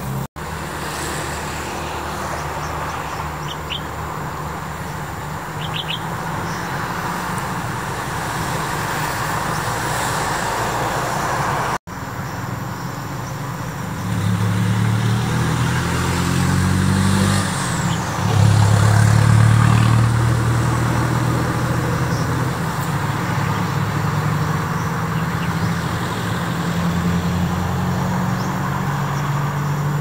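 Motor traffic: vehicle engines running and shifting in pitch, loudest about halfway through, with a few faint bird chirps early on. The sound breaks off for an instant twice.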